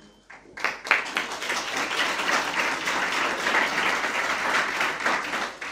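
Audience applauding: a few scattered claps, then steady clapping that eases off near the end.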